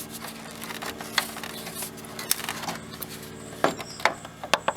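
Small pry bar prising plastic grille retaining clips loose: scattered clicks and snaps, coming thicker near the end, over a faint steady hum.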